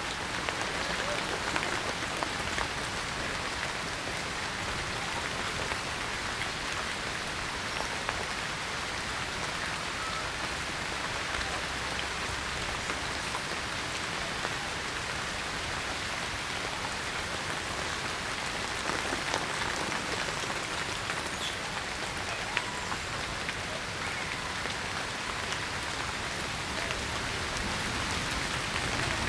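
Steady rain falling, an even hiss of drops striking surfaces, with now and then a sharper single drop.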